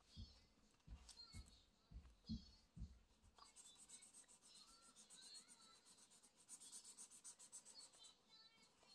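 Faint scratching of a felt-tip marker on paper over a clipboard, as quick back-and-forth coloring strokes. The scratching comes in a dense, even run from about three and a half seconds in, after a few soft low thumps.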